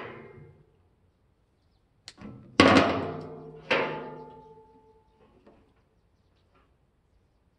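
Several sharp knocks, each followed by a ringing tone that fades over a second or two. One comes right at the start, then a cluster about two to four seconds in, the loudest about two and a half seconds in.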